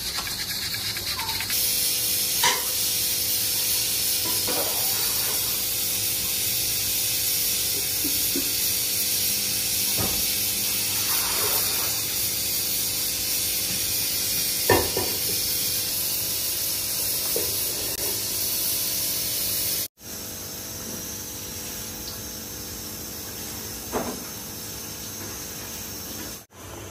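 Steady hiss of a large aluminium pot of meat broth and rice cooking on the stove, with a few light metal clinks of a ladle against the pot. About two-thirds of the way through it drops quieter, the pot now covered with its lid.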